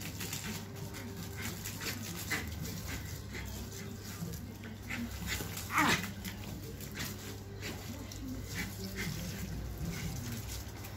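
Small terrier whimpering and giving short barks as it jumps at the spray of a garden hose, with one loud, falling yelp about six seconds in.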